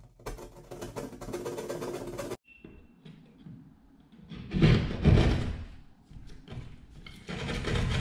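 Hand drywall jab saw cutting through gypsum drywall: spells of rasping saw strokes, stopping short about two and a half seconds in, then resuming with the loudest strokes around the middle and another spell near the end.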